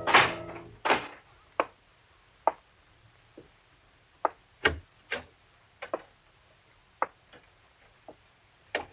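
About a dozen short, sharp knocks and clicks at uneven intervals, the loudest right at the start, with quiet between them.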